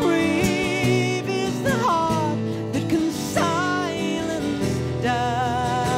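Acoustic folk song: strummed acoustic guitars under a woman singing long held notes with vibrato and short sliding phrases.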